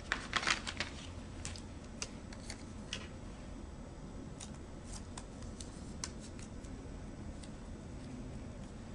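A paper adhesive label peeled off its backing sheet, with a brief crackle in the first second. Faint scattered clicks and rustles follow as the label is handled and pressed around a plastic syringe.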